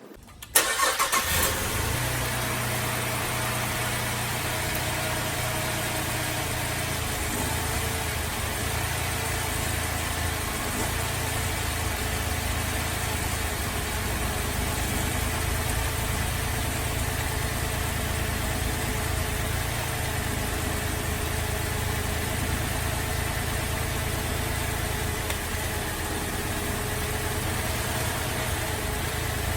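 Holden VZ Adventra's Alloytec V6 cranking and catching about half a second in, then idling steadily, running very rough from a misfire.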